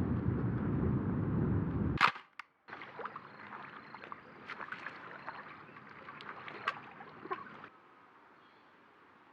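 Wind rumbling on the microphone, ended about two seconds in by a single sharp click. After it comes a quieter outdoor background with scattered small ticks, settling to a low steady hiss near the end.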